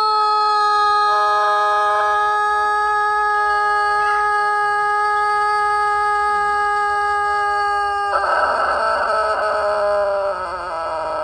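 Rooster crowing one very long held note, level in pitch for about eight seconds. Near the end it turns rough and sinks in pitch.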